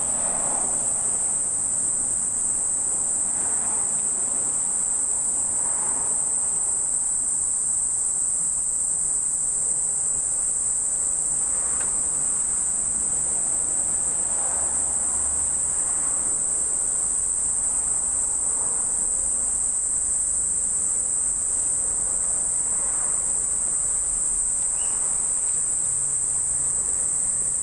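Insects calling in a steady, high-pitched, unbroken chorus.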